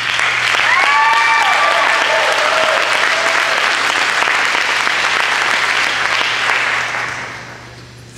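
Audience applauding, with a voice whooping over the clapping about a second in; the applause dies away near the end.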